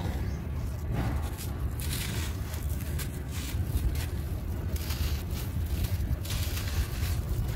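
Hands rubbing and crushing dry, gritty crumbs and dust: an irregular run of scratchy rustles and crunches over a steady low rumble.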